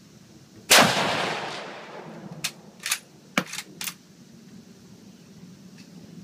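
A single shot from a Mosin-Nagant M44 carbine (7.62×54R): one sharp crack about a second in with a long echo trailing off over the next second. Then the bolt is worked: five short metallic clicks and clacks over about a second and a half as the spent case is ejected and the next round chambered.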